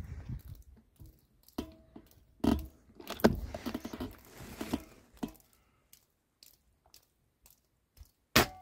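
Clicks and scrapes of a PCP air rifle being handled and readied. Near the end comes a single sharp shot from the Factor Sniper Long PCP air rifle, with a short ring after it.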